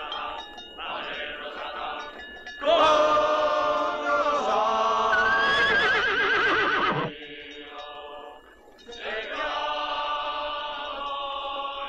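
A horse whinnying loudly for about four seconds, a few seconds in, its call quavering, over film music with chanting voices.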